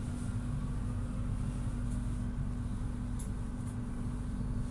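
Steady low hum and rumble inside a tram's passenger cabin, with a constant low tone from the tram's onboard equipment.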